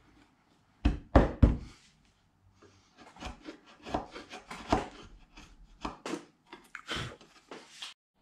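Bench chisel paring oak by hand: three loud, sharp knocks about a second in, then a run of short scraping cuts.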